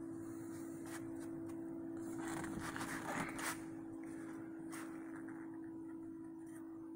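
A steady low hum, with rustling and handling noise and a few clicks loudest about two to three and a half seconds in, as the phone is moved around the car's interior.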